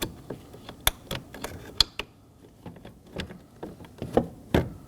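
Irregular light plastic clicks and taps as a door latch cable is fed through, hooked onto the back of an interior door handle and its retaining clip pressed in.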